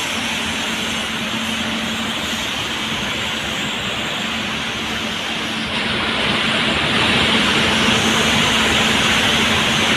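Steady, loud machinery noise with a constant low hum, getting a little louder about six seconds in.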